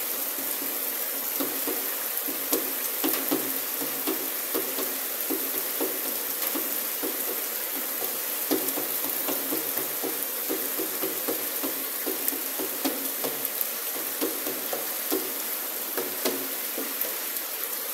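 Heavy rain with small hailstones pelting waterlogged ground: a steady dense hiss with many sharp ticks scattered through it.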